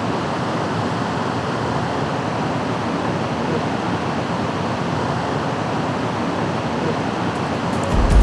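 Waterfall close by, its falling water making a steady, even rush.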